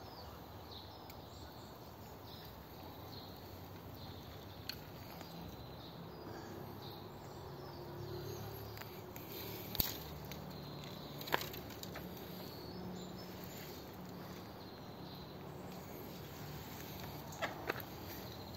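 Hen-yard ambience: a steady background hiss with faint bird and insect calls, broken by a few short sharp clicks, a close pair near the end.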